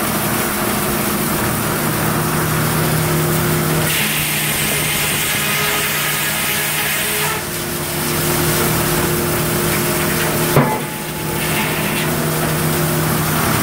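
Sawmill's large circular head saw and log carriage running over a steady machine hum, with stretches of rough sawing noise as the blade cuts through a log. There is a sharp knock about ten and a half seconds in.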